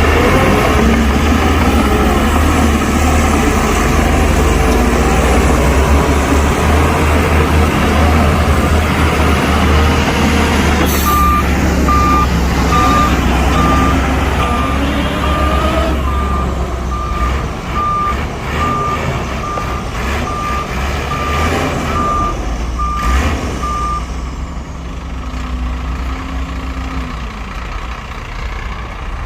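Heavy diesel dump truck engine running, with its reversing alarm beeping about one and a half times a second, starting about a third of the way in and stopping some five seconds before the end. A short hiss sounds as the beeping starts and again near its end.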